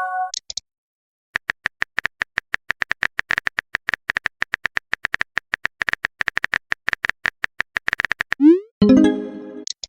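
Phone keyboard typing sound effect: a quick, even run of key clicks, several a second, for about seven seconds. It is followed near the end by a short rising swoosh and a brief chime, the message-sent and message-alert tones of a chat app. The tail of a similar chime sounds at the very start.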